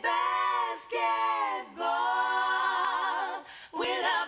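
A cappella singing: a voice holding a few long notes, each about a second, the longest near the middle wavering with vibrato and sliding down at its end.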